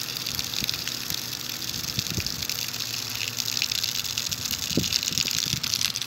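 A stream of water falling and splashing steadily onto stones at the edge of a pond, a continuous gushing hiss.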